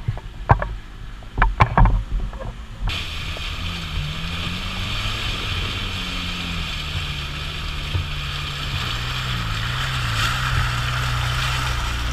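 Old open 4x4's engine running under load on a rough track, its pitch wavering up and down, with a steady rushing hiss over it. In the first couple of seconds there are a few sharp knocks.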